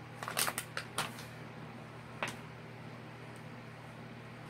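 A few short crinkles and clicks from handling the plastic film over a diamond painting canvas with a phone in hand, bunched in the first second, with one more about two seconds in. A faint steady hum lies underneath.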